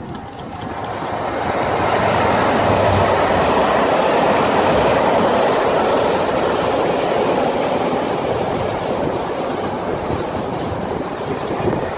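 Freightliner Class 66 diesel locomotive passing with its two-stroke engine running, followed by the track renewal train's wagons and track machines rolling by on steel wheels. The sound builds over the first two seconds, stays loud, then slowly eases.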